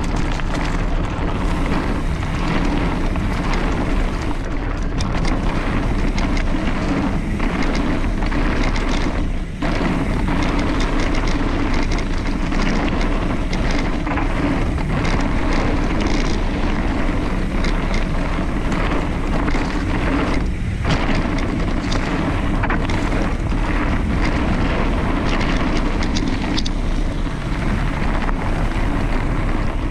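Wind noise on the microphone over a mountain bike's tyres rolling down a dirt trail, with frequent clicks and rattles from the bike over bumps.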